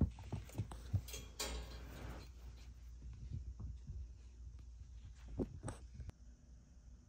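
Kittens' paws thumping and pattering on carpet as they scamper and play, with a brief rustle about a second and a half in.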